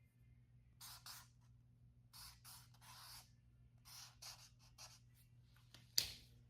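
Marker pen strokes on sketchbook paper: a series of short, quiet, scratchy strokes with gaps between them, the loudest one near the end.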